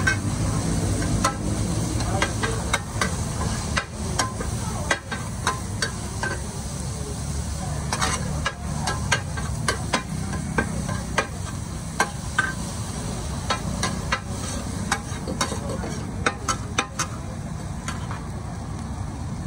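Metal ladle and spatula scraping and clacking against a large shallow steel wok as pad thai noodles are stir-fried, with frequent sharp clinks over a steady sizzle.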